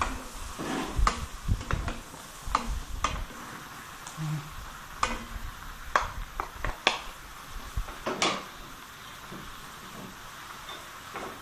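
Two wooden spatulas tossing snow peas and ground pork in a frying pan: irregular clacks and scrapes of wood against the pan over a faint sizzle. The clacking stops about eight seconds in, leaving the sizzle.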